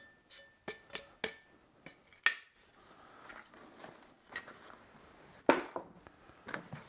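A small metal folding shovel being handled and put away: a scattered series of clicks and clinks of its blade and hinge, and knocks of gear being moved in the bag, with two louder knocks, one about two seconds in and one about five and a half seconds in.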